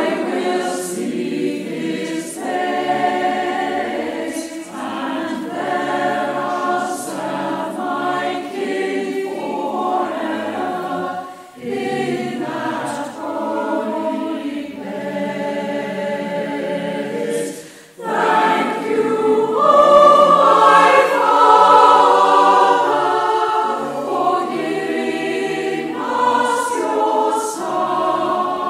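A choir singing in phrases with brief pauses between them, growing louder after a pause about two thirds of the way through.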